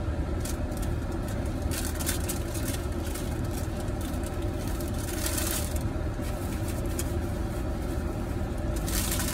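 Steady low rumble of a car's idling engine heard inside the cabin. Brief crinkles of a paper food wrapper being handled come and go over it, the longest about five seconds in.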